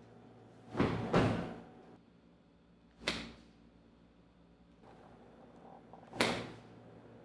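Sharp impact thuds from a martial-arts demonstration: two in quick succession about a second in, then single ones at about three and six seconds, each dying away quickly.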